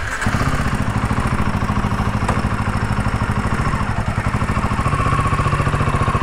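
Royal Enfield Himalayan 450's single-cylinder engine running at idle with a steady pulsing beat; its note drops slightly about four seconds in.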